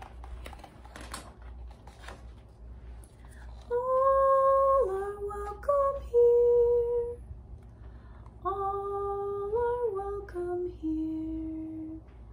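A woman singing two short wordless phrases of long, steady held notes, each stepping down in pitch and ending on a long low note. Before them comes a soft rustle of a book page being turned.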